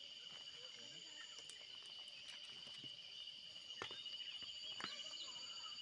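Evening insect chorus in woodland: a steady high, pulsing trill at two pitches, with a few short chirps. Two sharp knocks come about two-thirds of the way in.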